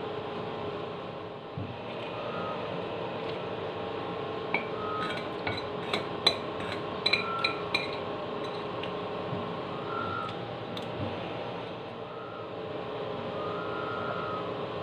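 A spoon clinking and scraping against a bowl while eating, with a quick run of sharp clinks in the middle, over a steady hum.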